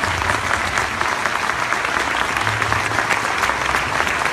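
Audience applauding steadily, a sustained round of clapping welcoming a speaker to the podium.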